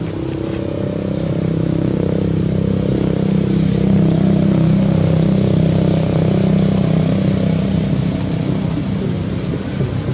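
A motor vehicle's engine running close by, building up over the first few seconds and then slowly fading, as it would while passing.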